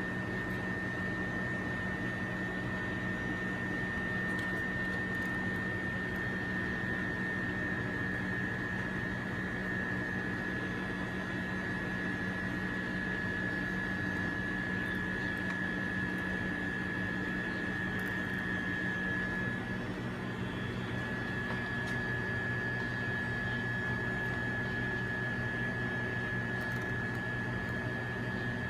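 Steady machine hum with a constant high-pitched whine, briefly dipping about twenty seconds in.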